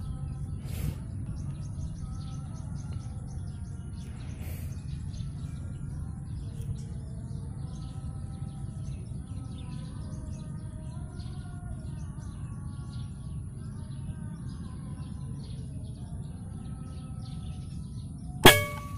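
Small birds chirping and calling over a steady low hum, then near the end a single sharp shot from a suppressed FX Wildcat bullpup PCP air rifle.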